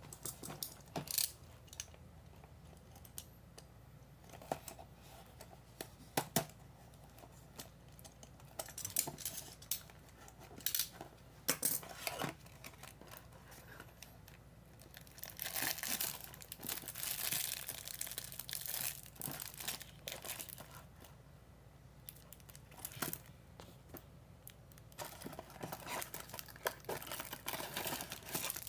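Cardboard toy box and its packaging being handled and opened by hand: scattered taps, clicks and scrapes, then a long stretch of crackling and tearing about halfway through, and plastic wrap crinkling near the end.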